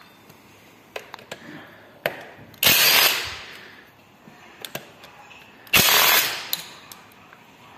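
Ryobi cordless impact wrench hammering in two short bursts about three seconds apart, undoing the water pump bolts, with a few light clicks of the socket and bolts in between.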